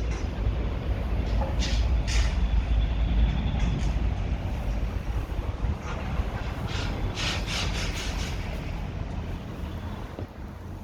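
Low, steady rumble of vehicle traffic, with a few short hisses about two seconds in and again past the middle, fading somewhat near the end.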